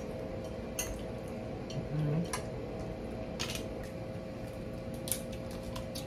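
Eating at a table: scattered light clicks and taps of utensils and seafood shells against plates, with a short low hum about two seconds in.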